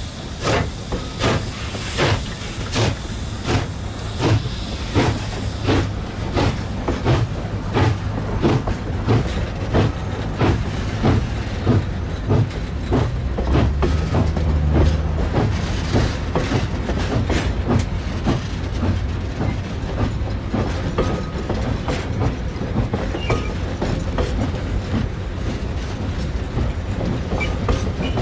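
Train of loaded coal dump wagons rolling slowly past, their wheels clicking over the rail joints in a steady rhythm over a continuous rumble.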